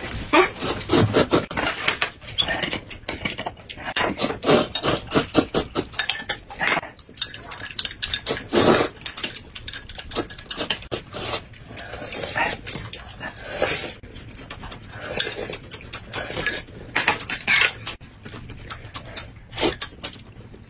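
Noodles being slurped from a cup of instant rice noodles, with chewing, as a long string of short wet sucks, one louder slurp about nine seconds in.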